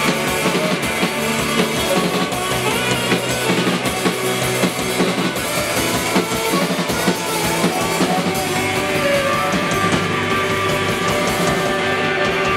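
Live band playing an instrumental passage: a strummed bouzouki-style string instrument, saxophone, keyboard and a drum kit keeping a steady beat.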